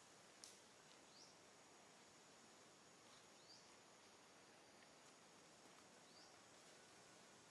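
Near silence: faint outdoor background hiss, with a faint short rising chirp three times and a single click about half a second in.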